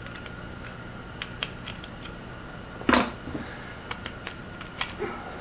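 Light scattered clicks and scrapes of a small metal pick working inside a plastic RV outlet, prying the wires out of its push-in contacts, with one louder clack about three seconds in.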